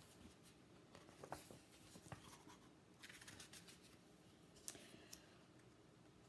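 Faint paper rustling and soft clicks as a page of a picture book is turned by hand.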